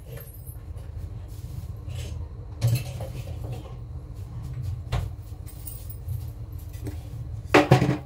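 Household items being put away in a kitchen: a cupboard and utensils knocking and clattering, with single knocks about a third and two-thirds of the way through and a louder cluster of clatters near the end, over a steady low hum.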